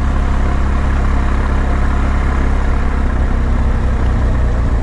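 BMW R1200GS Adventure's boxer-twin engine running steadily as the motorcycle rolls along at low speed, with a steady rush of wind and road noise.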